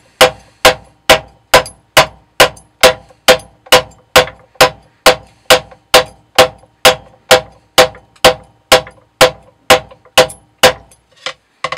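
A steel knife blade with a D2 tool-steel core chopping into deer antler, about two sharp blows a second, each with a brief ringing note. The blows stop shortly before the end. They are a set of 30 strikes on one marked section of the edge, testing it for chipping.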